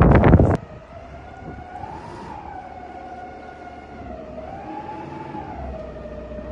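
A loud rush of noise cuts off about half a second in. After it, a siren wails, its pitch slowly rising and falling about every three seconds.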